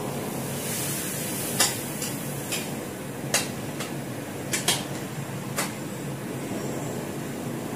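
A spatula knocking and scraping against a wok as pasta is stirred in it, a string of irregular sharp clinks over a steady hum.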